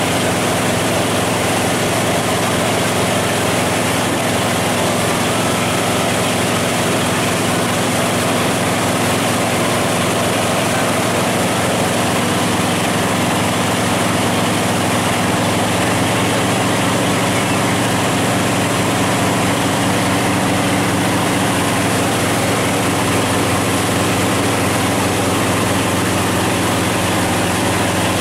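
Tow boat's engine running steadily at towing speed, over a steady rush of water and wind.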